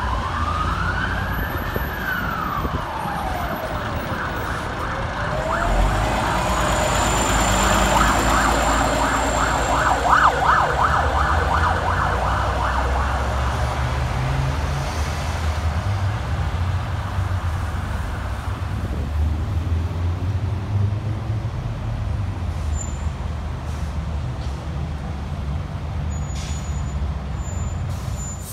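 An emergency-vehicle siren wails, rising and falling slowly through two sweeps over the first few seconds, then fades. Under it, a Scania L94UB bus's diesel engine pulls away from a stop. It revs hard with a rapid, even pulsing between about six and thirteen seconds, then eases to a steady rumble as the bus moves off among passing traffic.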